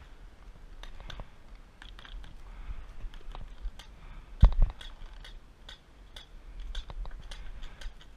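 Paintball markers firing in scattered sharp pops, a few each second, with one much louder, nearer shot and a thump about four and a half seconds in.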